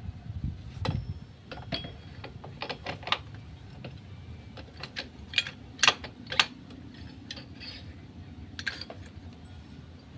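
Metal motorcycle clutch parts (clutch basket, plates and drum) clicking and clinking against each other as they are handled and fitted onto the engine. The knocks are irregular, with the sharpest clinks a little past the middle.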